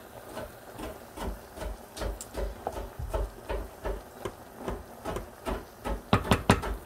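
Light knocks and clicks of kitchen utensils at work, about two to three a second, with a quick run of louder ones near the end.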